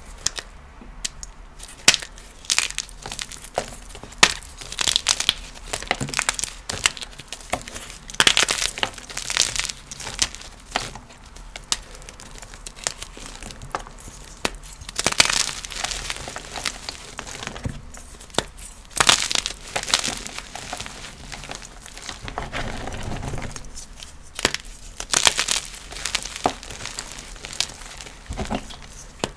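Blocks of gym chalk being crushed, with repeated dry crunching and crackling as they break and crumble. There is a softer, lower rubbing of the powder a little past the middle.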